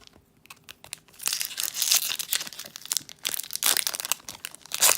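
Foil Pokémon booster pack wrapper crinkling and being torn open by hand. Quiet for about the first second, then a dense, irregular crackle.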